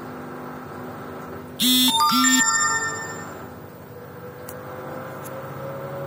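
A bright two-note chime sounds about a second and a half in, its tones ringing on for about a second. Under it, an LG direct-drive front-loading washing machine runs with a steady hum. In the second half a faint whine rises slowly in pitch as the drum speeds up.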